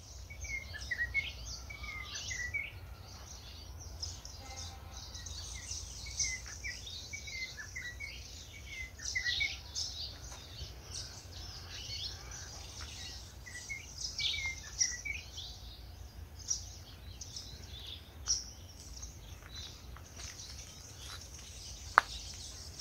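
Many birds chirping and calling in short, scattered phrases, over a steady low rumble. There is one sharp click near the end.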